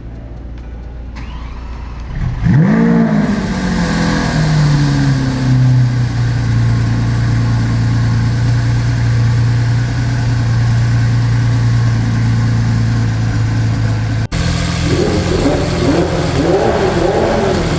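Lamborghini Aventador's 6.5-litre V12 starting: it catches about two and a half seconds in with a sharp rise and fall in revs. It then settles from a high idle into a steady idle. The sound drops out for an instant near the end, then the idle goes on.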